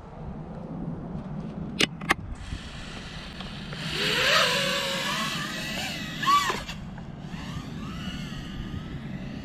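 Two sharp clicks, then an FPV quadcopter's motors spinning up into a whine whose pitch wavers and glides as it lifts off, loudest about four to six seconds in with a quick rise and fall in pitch, then fading as it flies away.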